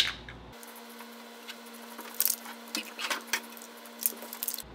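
Paper towel rubbing and dabbing on a bare sheet-metal car floor pan around freshly primed holes, a few short scuffs and rustles over a faint steady hum.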